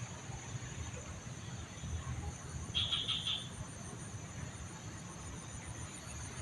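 Outdoor pond-side ambience: a steady high insect drone, one part of it pulsing, over a low steady rumble. A short burst of chirping comes about three seconds in.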